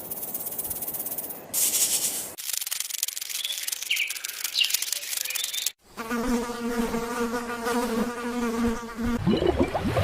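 Insects: a high, hissing buzz with a few short chirps, then after a sudden cut a steady droning buzz for about three seconds, changing again near the end.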